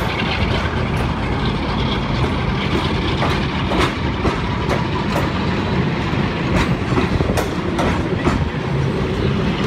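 Train of coaches rolling along, their wheels clicking irregularly over the rail joints. Underneath is a steady low running noise from the Class 45 diesel locomotive's Sulzer twin-bank 12-cylinder engine hauling them.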